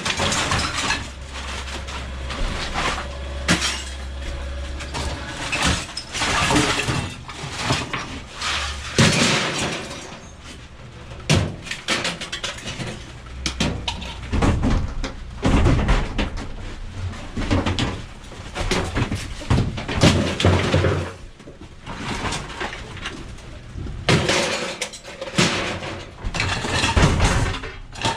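Scrap being broken apart by hand: irregular knocks, clanks and cracking, with what sounds like glass breaking.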